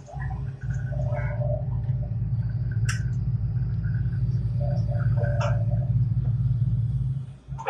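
Heavy construction machine's engine running with a steady low rumble that drops away near the end, with two sharp clicks about three and five and a half seconds in.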